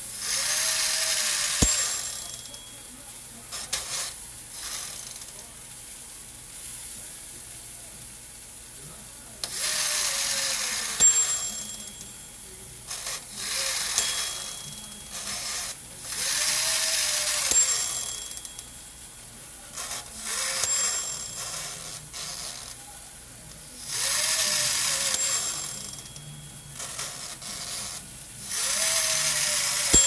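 Black & Decker toaster oven's mechanical toast timer switch, wound up and then running back down within a second or two with a fast ratcheting whir, each run ending in a ding of the bell. This happens several times over. The timer mechanism has failed: it runs out in seconds instead of counting down minutes.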